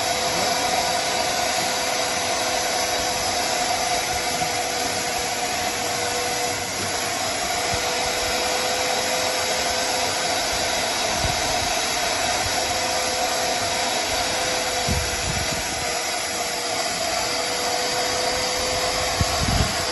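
DeWalt wet/dry shop vacuum running steadily with a constant motor whine as it sucks up algae-green water through its hose and floor wand.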